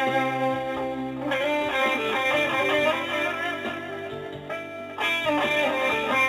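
Guitar music: sustained chords under a melody, with a new chord struck about a second in and again near five seconds, and wavering, vibrato-like notes in between.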